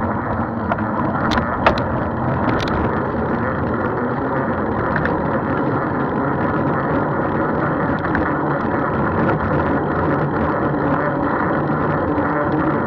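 Steady rumble of road and wind noise on the move, with a few sharp clicks about one and a half to three seconds in.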